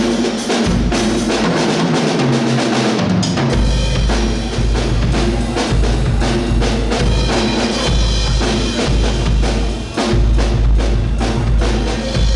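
Live band playing amplified music during a sound check, a full drum kit with kick and snare driving a steady beat over a bass line.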